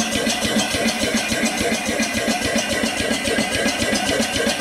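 Small vertical single-cylinder steam engine running on steam with a quick, even beat, and steam hissing steadily from its leaking seals.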